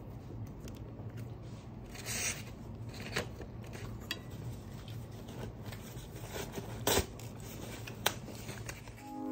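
Light handling sounds: a few scattered sharp clicks and some rubbing over a low steady hum, with the loudest click about seven seconds in.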